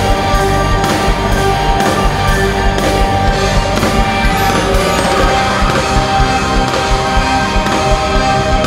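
Loud show music with a steady beat and held tones.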